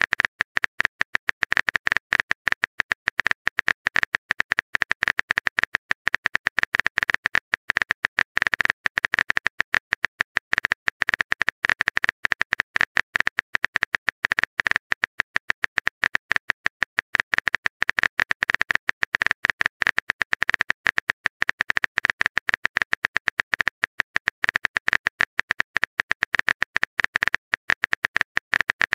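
Phone chat-app keyboard typing sound effect: a rapid, even run of key clicks, about ten a second, one for each letter as a text message is typed out.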